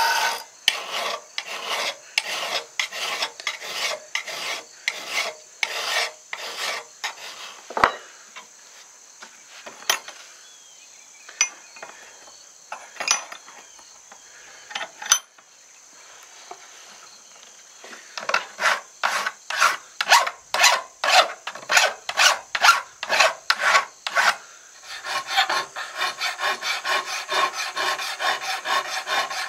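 Hand file stroking across the steel of a tomahawk head, made from an old horseshoe rasp and clamped in a vise, while the blade's profile and edge are shaped before heat treating. The strokes come about one or two a second, thin out to a few scrapes and clicks around the middle, then turn quicker and denser for the last ten seconds or so.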